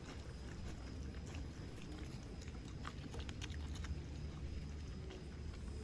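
Wild boar feeding: scattered short crunching clicks of chewing over a low steady rumble.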